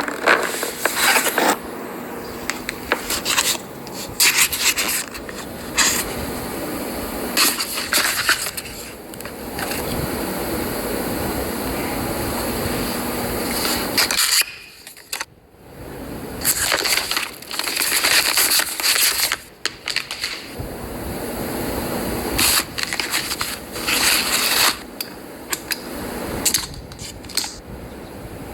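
Packaging of a new iMac being handled and opened: cardboard and plastic wrapping scraping and crackling in many short bursts, with steadier rubbing stretches between and a brief lull about halfway through.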